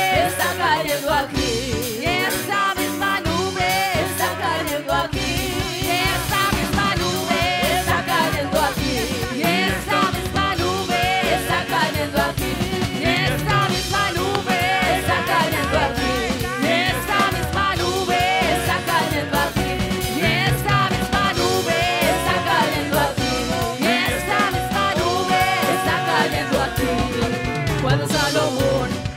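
Live Spanish-language praise song: a woman leads with backing singers, over electric bass and percussion. The bass fills in about four seconds in.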